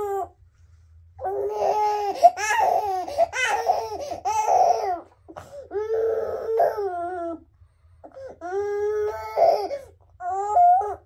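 Infant crying in repeated high-pitched wails with short catches of breath between them, as its face and nose are wiped.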